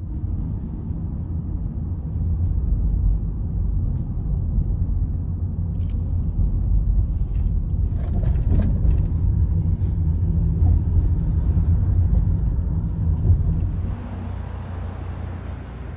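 Steady low rumble of a car driving on a road, heard from inside the car, with road noise and engine drone. About 14 seconds in it gives way to quieter, hissier street ambience.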